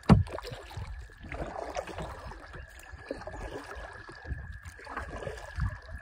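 Kayak paddle strokes: water splashing and trickling off the paddle blades in uneven swells. A sharp knock right at the start is the loudest sound.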